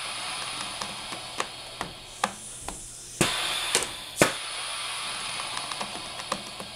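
Belt-testing rig cyclically loading a padded hip belt on a pelvis-shaped test fixture: a steady hiss with repeated sharp clicks and knocks from the steel shackle and fixture, roughly every half second, the loudest about three and four seconds in.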